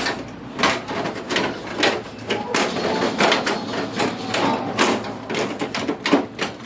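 Irregular clicks, knocks and rattling of parts being handled and fitted on an air conditioner during reassembly.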